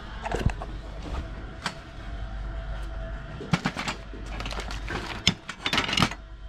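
Hand tools clinking and knocking against each other as a hand rummages through a bin of them and lifts a hammer. A few single knocks come first, then a busier run of clatter in the second half.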